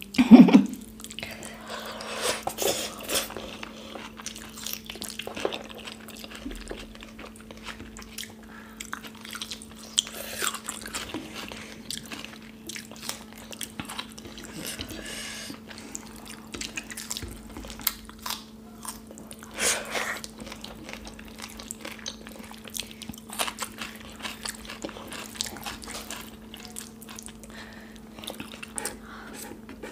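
Close-miked wet eating sounds: fingers squishing and mixing rice in kadhi (yogurt curry), with irregular chewing and lip smacks. A steady low hum runs underneath.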